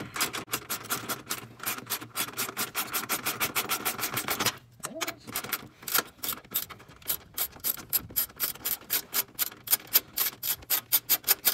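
Hand ratchet wrench clicking in quick runs as a fastener is worked loose, with a short break about halfway and fast, even clicks after it.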